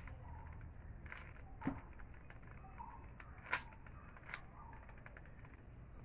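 Faint plastic clicks and clacks of a stickerless 3x3 Rubik's cube having its layers turned by hand, with two sharper clacks about a second and a half in and again about three and a half seconds in, over a low steady hiss.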